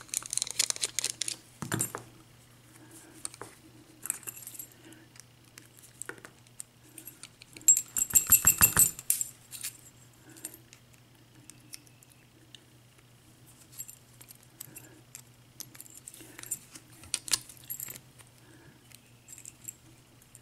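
Small metal clicks and clinks of a padlock and its parts being handled as its retaining screw is taken out and the core removed, with a run of rapid, closely spaced clicks about eight seconds in.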